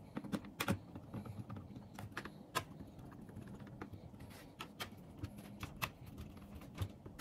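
Screwdriver and fingertips on a laptop's plastic bottom cover as its screws are driven back in: faint, irregular light clicks and taps.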